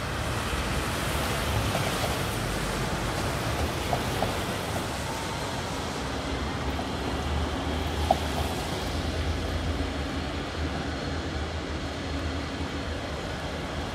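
Rain and traffic on wet city streets: a steady broad hiss, with a faint low engine hum coming in about halfway through and a few soft clicks.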